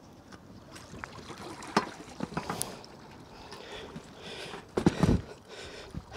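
Knocks and rattles from a rusty BMX bike, just pulled out of a canal, as it is handled and shifted on the bank, with a few heavy thumps about five seconds in.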